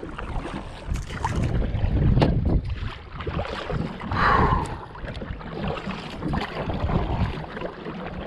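Kayak paddle strokes: the blades dip and pull through the water with uneven splashing, and the loudest splash comes about four seconds in.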